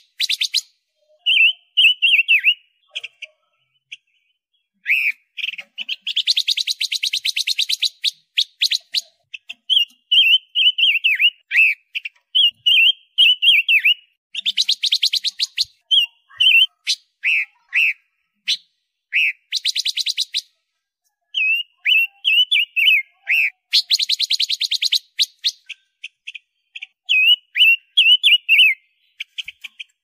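Silver-eared mesia singing: short, clear warbling phrases that bend up and down, alternating with rapid chattering trills a second or two long, with brief pauses between phrases.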